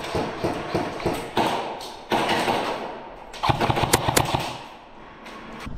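Airsoft guns firing: a run of light taps in the first second, then a quick burst of sharp cracks and thuds about three and a half seconds in.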